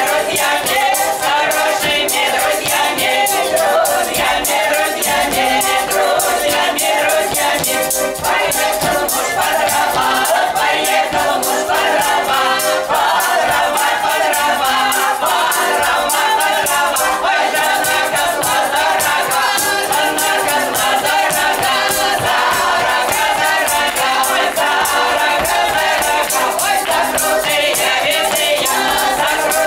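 Women's folk choir singing together, with a steady rhythmic beat behind the voices.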